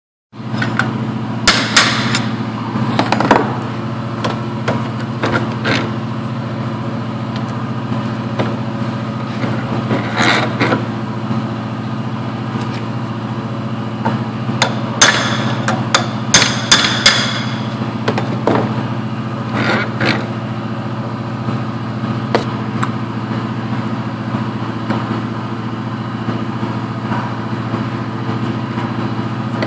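Hammer blows on a steel drift knocking the front wheel bearing out of a Club Car Precedent hub held in a bench vise: sharp metallic strikes, singly and in short runs with long gaps, the densest run about halfway through. A steady low machine hum runs underneath.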